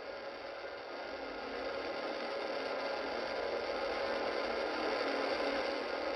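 Steady hiss and static from a radio receiver, with a few faint steady tones in it, growing louder over the first few seconds.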